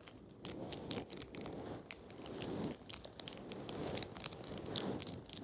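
A handheld fidget toy being worked, giving rapid, irregular clicks over a soft crinkly, scraping rustle.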